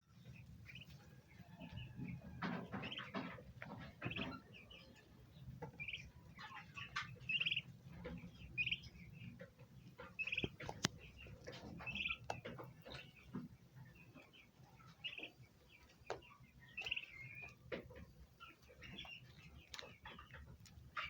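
Turkey poults peeping in many short, high chirps at irregular intervals, with a turkey hen calling lower among them.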